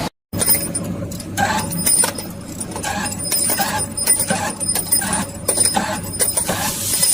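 Industrial machinery running with an irregular clatter of metallic clicks and knocks over a steady mechanical din.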